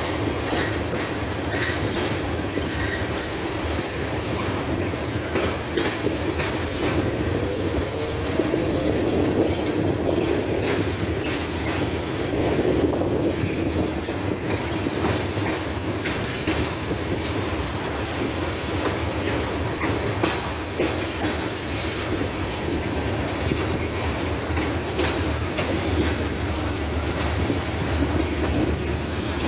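Freight cars, tank cars and then covered hoppers, rolling steadily past: a continuous rumble and rattle of steel wheels on the rails, with frequent irregular clicks and clacks as the wheels cross the track.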